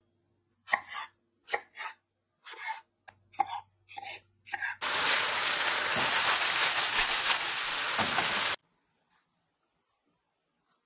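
A series of knife cuts on a cutting board, then food sizzling loudly in hot oil in a pan for about four seconds, which cuts off abruptly.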